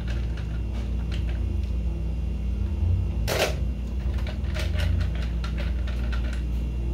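Hands handling things at a table: scattered light clicks and taps, with a short louder scraping swish about three seconds in, over a steady low hum.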